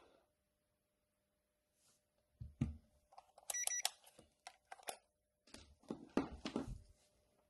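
Digital multimeter giving short beeps about three and a half seconds in, between faint knocks and clatter as the meter, probes and charger circuit board are handled on a workbench mat.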